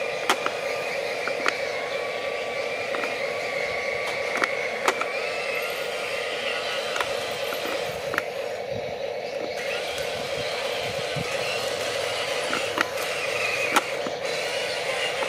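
Small electric motors and gears of radio-controlled toy construction machines, a dump truck and a tracked excavator, whining steadily, with sharp clicks scattered through.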